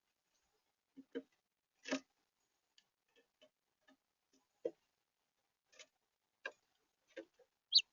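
House finches making scattered light clicks and taps, about a dozen at irregular intervals, with one short high chirp near the end.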